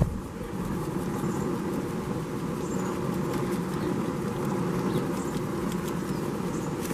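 Broth simmering in a paella pan on a gas grill: a steady rush from the burners and the boil, with small crackling pops and faint clicks. Faint high chirps recur about once a second.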